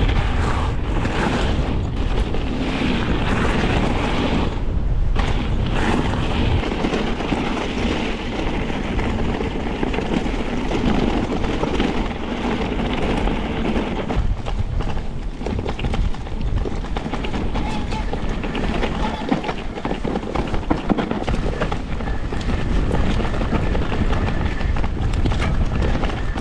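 Mondraker Crafty R electric mountain bike descending a rough trail at speed: tyres rolling over dirt, with frequent knocks and rattles from roots and rocks, and wind buffeting the microphone.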